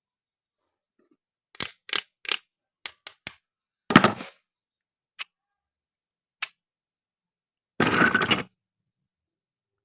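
Hard toy food pieces clicking and knocking as they are handled: a run of quick light taps, a louder knock about four seconds in, two single ticks, then a short rasping clatter near the end.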